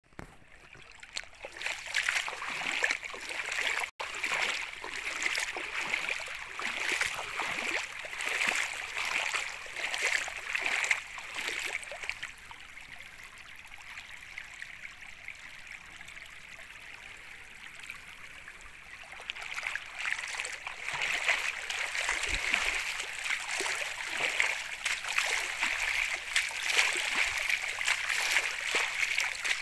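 Shallow floodwater rushing and babbling over a submerged path, a continuous splashing flow. It grows quieter for several seconds in the middle, then louder again.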